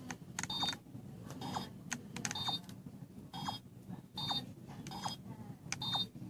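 Number keys on a Kaizoku Sentai Gokaiger Mobirates toy transformation phone pressed one after another, about one a second: each press gives a plastic click and a short electronic beep.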